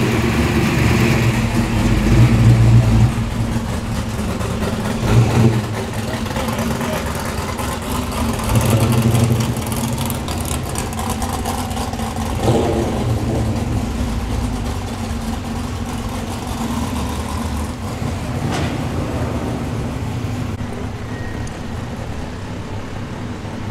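Car engines and exhausts as show cars drive slowly past one after another, a steady low rumble that swells louder about two, five and nine seconds in as each car goes by, then eases off.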